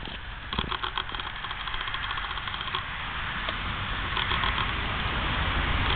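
A dog crunching on a corn cob in quick bites during the first few seconds, while a steady engine-like rumble grows gradually louder.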